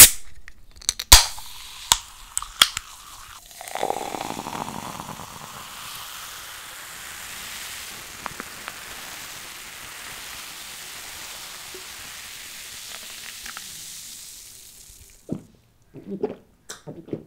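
Aluminium cola can snapped open with a sharp crack and a few clicks, then carbonated cola poured into a glass mug, fizzing with a steady hiss for about ten seconds. Near the end, a few gulps of the drink.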